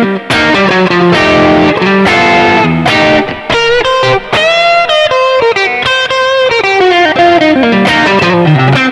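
Tokai Goldstar Sound Stratocaster electric guitar on its middle single-coil pickup, played through a Roland Cube 30 amp on its overdrive sound: a continuous run of picked single notes and licks with string bends.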